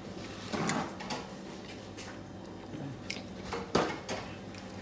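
A metal fork and spoon clicking and scraping against a plate of food a few times, the loudest click about four seconds in.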